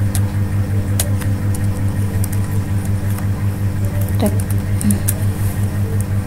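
Steady low mechanical hum, pulsing rapidly and evenly, with a couple of faint clicks about a second in and about four seconds in.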